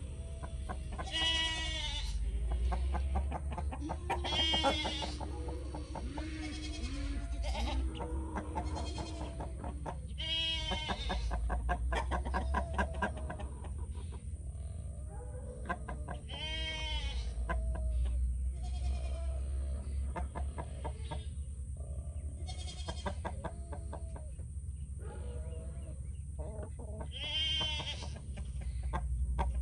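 A goat bleating over and over, about six quavering bleats a few seconds apart, with hens clucking softly underneath.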